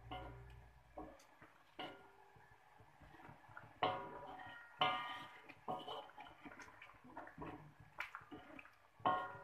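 A wooden spatula stirring a thin coconut-milk curry in a metal wok: the liquid sloshes, and the spatula knocks against the wok several times at irregular intervals, each knock ringing briefly.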